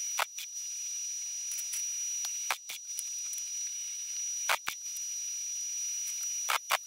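Gas-shielded MIG welder tack-welding sheet steel: four pairs of brief sharp crackles about two seconds apart, over a steady hiss with a thin high whine.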